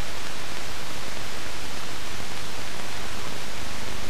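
Steady hiss of an old film soundtrack, with no other sound heard over it.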